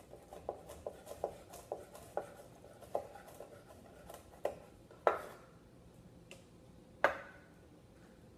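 Kitchen knife mincing fresh rosemary on a wooden cutting board: a run of quick, uneven taps of the blade on the board, thinning out, with two much louder chops about five and seven seconds in.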